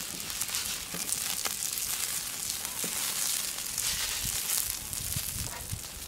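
Wood fire crackling and hissing in a pit beneath a flat stone griddle with crabs cooking on it, a steady hiss full of small pops.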